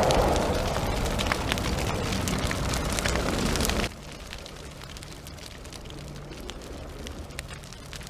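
Fire crackling and burning, loud and dense with fine pops, cutting off suddenly about four seconds in. After that only a faint low hum with a few light ticks remains.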